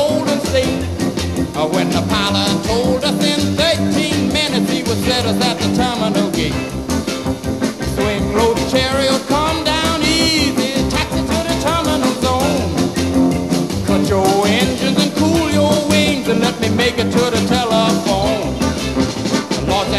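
Upbeat rock and roll music with a steady beat.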